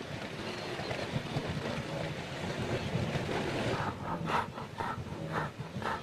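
Wildebeest herd grunting in short repeated calls, about two a second, starting about four seconds in over a steady wind-like rushing.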